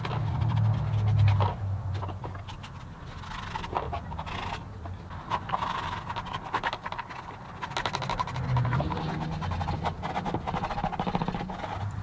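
A cloth rubbing leather dye onto the surface of a leather pouch: irregular scratchy rubbing strokes.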